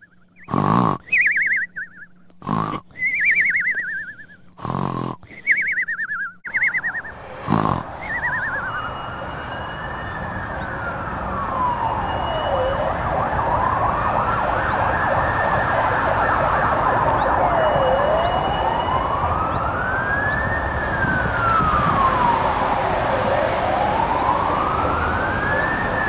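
Emergency-vehicle siren in a slow wail, its pitch rising and falling about once every five seconds, over a steady rumble of street noise. It begins about eight seconds in, after a string of sharp hits and short falling, warbling tones.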